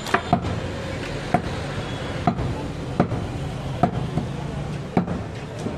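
Butcher's cleaver chopping goat meat and bone on a wooden block: sharp knocks about once a second, over a steady background hum.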